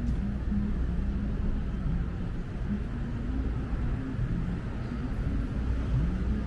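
Murmur of a large crowd, many voices blurred together, over a steady low rumble.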